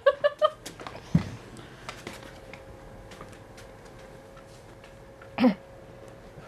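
A padded chair with metal legs set down on the stage floor with a single dull thump about a second in, after the last of some laughter. Then quiet room tone with a faint steady hum, broken near the end by a brief vocal sound.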